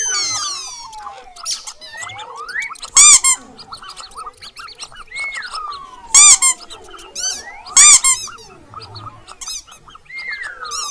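Mouse squeak sound effects: three loud, shrill squeaks about three, six and eight seconds in, with quieter chirps and falling whistle-like squeals between them.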